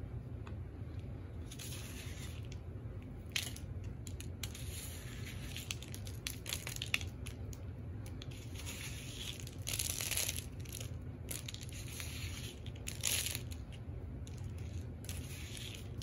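Loose birdseed rustling and crunching on a paper plate as hands press and pat it onto a peanut-butter-coated cardboard tube, in short irregular scrapes.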